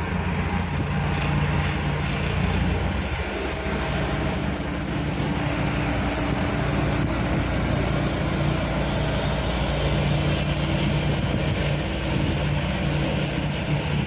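Heavy diesel engine of a loaded dump truck running steadily at low speed as the truck creeps forward.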